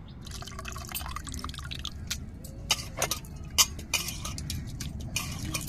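Tamarind water poured from a steel pot into a clay pot of fish pieces: splashing and dripping, with a run of sharp drips and taps.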